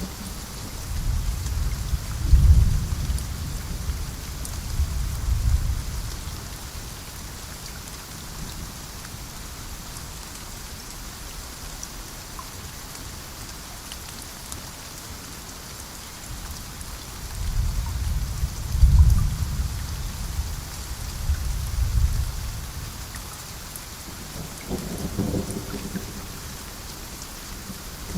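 Steady rain falling, with low thunder rumbling on and off; the two loudest rolls swell up about two seconds in and again around nineteen seconds in.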